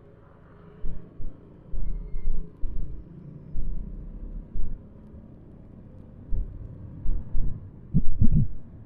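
Motorcycle on the move heard through the rider's action-camera mic: a low rumble broken by irregular low thumps, with a few short louder bursts near the end.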